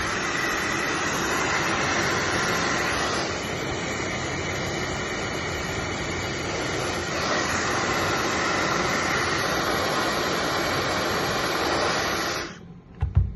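Hair dryer blowing steadily, a little quieter for a few seconds early on and then back up, until it switches off abruptly near the end. Two sharp knocks follow just after.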